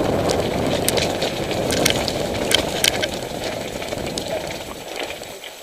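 Mountain bike riding over a rough, stony lane: a dense rumble of tyres and frame vibration with scattered sharp clicks and rattles of stones and bike parts, easing off about five seconds in.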